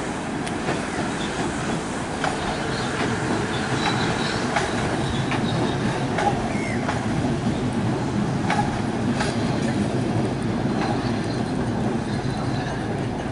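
A Class 450 Desiro electric multiple unit running past, a steady rumble of its wheels on the rails with scattered clicks.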